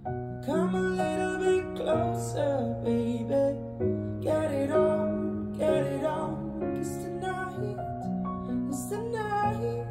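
A song played back through SEAS Exotic monitor loudspeakers: a sung vocal line over keyboard and guitar accompaniment.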